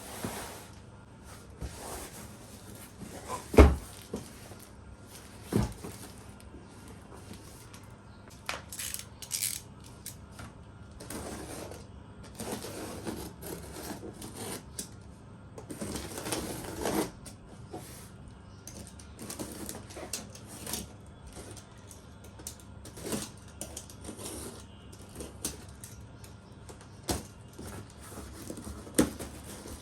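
Scattered knocks, clicks and rustling from a boxed adjustable laptop table and its parts being unpacked and handled, with a loud thump about three and a half seconds in and another a couple of seconds later.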